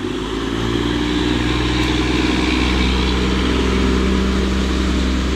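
Engine of a self-propelled railway track-inspection vehicle running as it rolls past close by. It makes a steady low drone that grows a little louder in the first second and then holds even.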